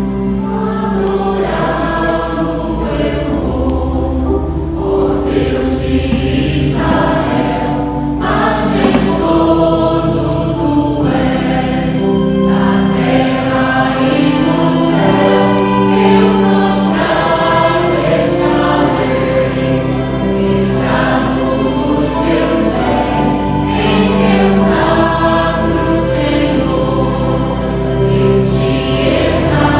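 Church vocal group singing a gospel worship song in harmony with instrumental accompaniment, in long sustained notes.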